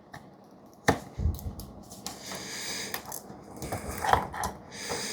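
Wet sharpening stone of a Work Sharp guided sharpening system scraping along a 3V steel knife edge in a couple of slow strokes, with a few sharp clicks from the stone and rig.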